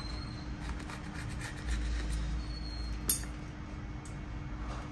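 Light taps and scraping of small repair tools working on a smartphone's back glass, with one sharper click about three seconds in, over a steady low rumble.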